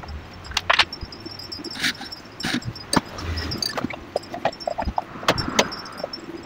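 Irregular plastic clicks and knocks as the plastic motor housing cover of a desk fan is fitted and pressed into place by hand, with about eight sharp knocks.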